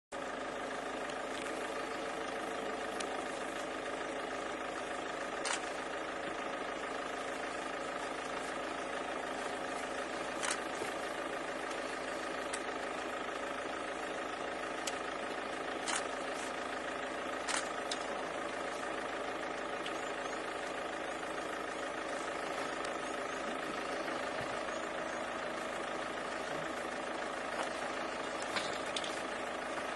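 Vehicle engine idling steadily, with a few short sharp clicks scattered through.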